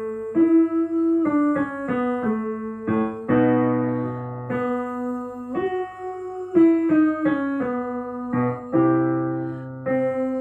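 Piano playing a short vocal warm-up phrase of separate notes twice, each phrase ending on a held chord with a low bass note, the second time starting a little higher.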